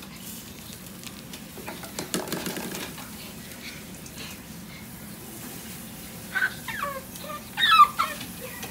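Shiba Inu giving two short, high yelps with falling pitch, a second apart near the end, the second louder: protest cries at being bathed. A few faint knocks come before them.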